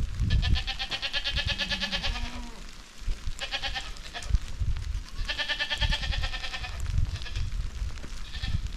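Goats bleating: a long wavering bleat, a short one about three seconds in, then another long one, with fainter calls near the end. A low rumble and soft thumps run underneath.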